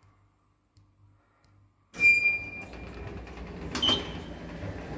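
Lift car of a 2014 KON-REM automatic passenger elevator: near silence, then about two seconds in a short electronic beep as a steady running hum of the car and its doors sets in. Near the end there is a click and a higher beep as a floor button on the car panel is pressed.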